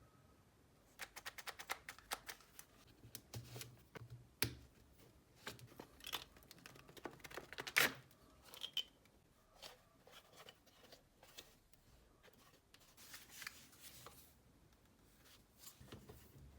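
Small hard objects being handled: a run of irregular clicks, taps and rustles, with the sharpest click about eight seconds in.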